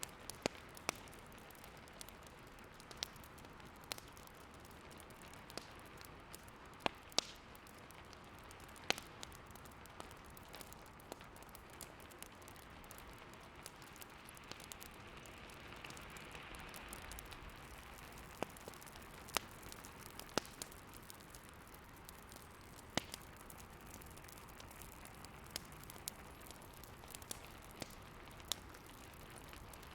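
Wood fire crackling, with irregular sharp pops scattered over a steady soft hiss that swells briefly around the middle.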